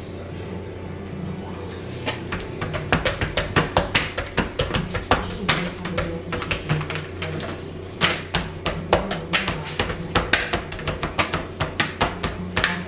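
Hands patting and rubbing seasoning into a raw whole red snapper on a glass dish: from about two seconds in, a quick, irregular run of wet slaps and taps several times a second, over background music.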